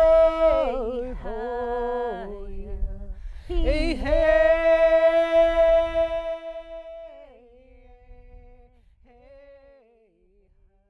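Unaccompanied solo voice singing long held notes, each phrase stepping down in pitch at its end. A second phrase begins about three and a half seconds in, and the singing fades away near the end.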